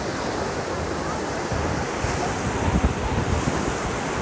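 Ocean surf washing against rocks, with wind buffeting the microphone.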